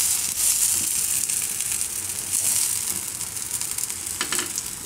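Oil sizzling steadily around bottle-gourd tikkis shallow-frying in a flat pan, one just turned browned side down; the sizzle is loudest at the start and eases a little.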